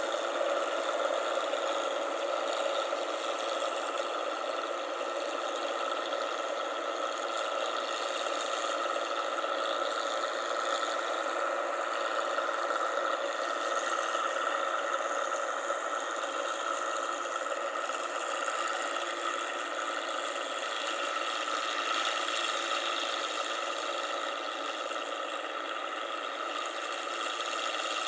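Rice combine harvester's engine and machinery running steadily, with a constant mechanical whine.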